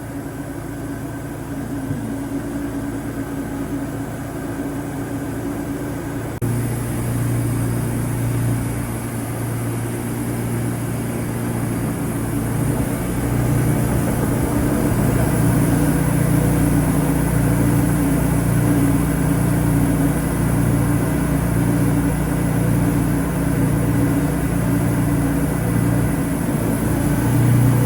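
Wood-Mizer LT40 Super band sawmill running steadily; about six seconds in it gets louder, as when the blade goes under load in the cut, and it stays loud to the end.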